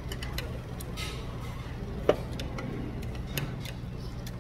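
Thin metal chopsticks clicking against a bowl while picking at and stirring food, with one sharper ringing clink about two seconds in, over a steady low hum.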